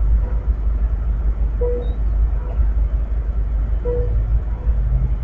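Amtrak bi-level passenger train rolling slowly past with a steady low rumble, while a short beep sounds about every two seconds, twice here.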